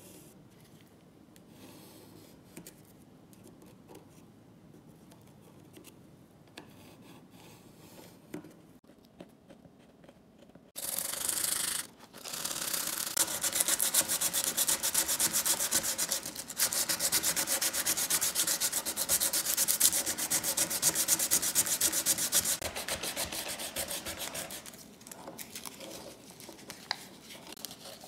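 Hand sanding of a wooden knife-handle scale, sandpaper rubbing back and forth in quick strokes. It starts abruptly about a third of the way in, after a quiet stretch, pauses briefly just after starting, and grows softer near the end.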